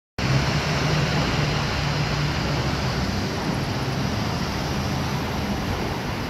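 Steady traffic noise with a low engine hum from cars at the curb, starting suddenly about a quarter second in.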